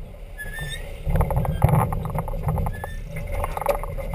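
A Farr 40 racing yacht under sail: water rushing along the hull and wind rumbling on the microphone, with a run of clicks and knocks from the rigging and lines as the crew work the foredeck. A brief squeak about half a second in.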